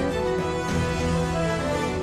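Instrumental background music: sustained notes with a melody moving over a steady low tone.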